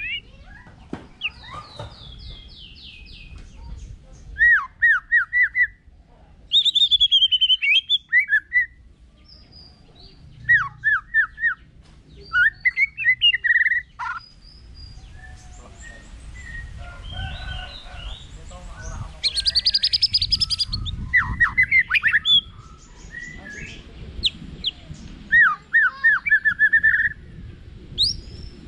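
White-rumped shama singing loudly in phrases of rapid repeated notes, some falling in pitch, with short pauses between phrases.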